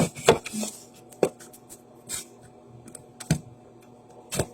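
Scattered light clicks and knocks of small objects being handled and set down, with a few sharper knocks spaced about a second apart.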